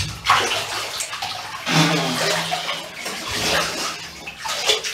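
Water splashing and sloshing in repeated surges, three main swells: at the start, about two seconds in, and near the end.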